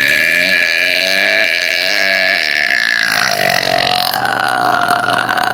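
A woman's loud, very long burp: one unbroken belch that carries on for several seconds, its tone dropping slightly about three seconds in.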